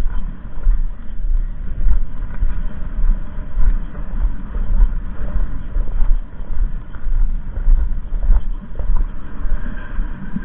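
Wind buffeting the microphone: a loud, gusting low rumble that swells and drops irregularly.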